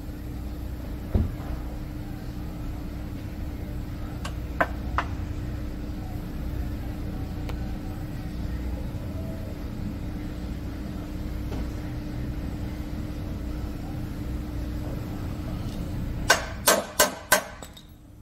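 A steady low machine hum runs throughout, with a sharp knock about a second in and two light ticks a few seconds later. Near the end come four sharp metal knocks in quick succession, a hand tool striking the broken bolt stub being worked free.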